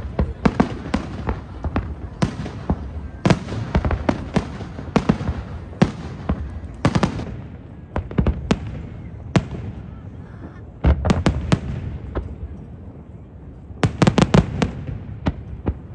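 Fireworks display: aerial shells bursting in an irregular run of sharp bangs over a continuous rumble, with quick clusters of several bangs about eleven seconds in and again near the end.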